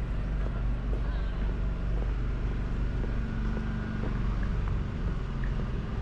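Urban street ambience dominated by the steady low rumble of a running vehicle engine, with a few faint ticks and clatters.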